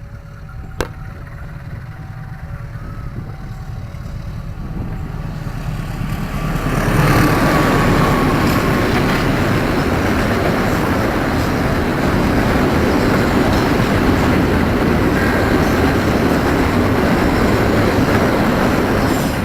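Level crossing warning alarm sounding a slow two-note signal as a train approaches. The train then passes close by with a loud, steady rumble of wheels on rail that lasts to the end.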